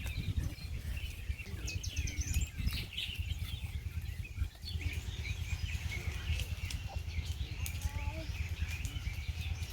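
Birds chirping and twittering, with rapid high calls, over a steady low rumble.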